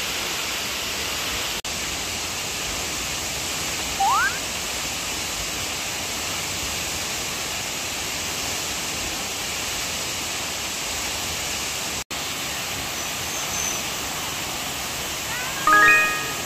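Steady rushing roar of a waterfall's falling water. A short rising whistle comes about four seconds in, and a brief, louder pitched call near the end.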